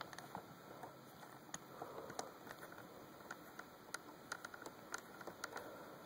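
Faint, irregular small clicks and scrapes of a Phillips screwdriver working out the tiny screws that hold a Dell Latitude D630 laptop's keyboard.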